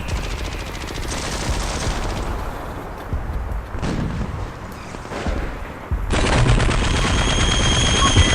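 Rapid machine-gun fire, shots running together into continuous rattling bursts that grow louder about six seconds in. A steady high-pitched whistle joins them at that point.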